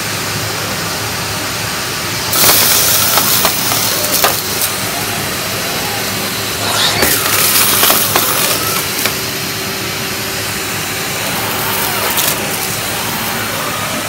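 Numatic tub vacuum cleaner running on high with an air-driven turbo brush head on carpet, a steady motor hum under the airflow. It gets louder and hissier about two seconds in and again about seven seconds in, as the head draws up the scattered test dirt.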